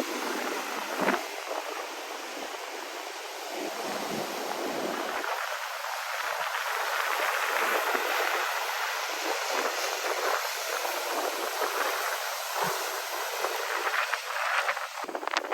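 Ocean surf washing ashore: a steady rushing noise that builds slowly to a peak midway and then eases, with a few faint knocks.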